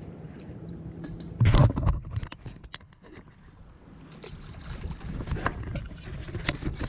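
Knocks and rubbing from a handheld camera being picked up and moved, the loudest a heavy bump about one and a half seconds in, then water sloshing against jetty rocks, building up toward the end with small clicks.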